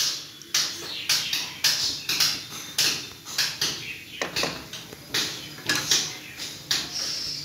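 Steel kadai of coconut-milk chicken curry on the stove, with a run of irregular sharp clicks and taps about twice a second, from the wooden spatula knocking against the pan and the curry heating.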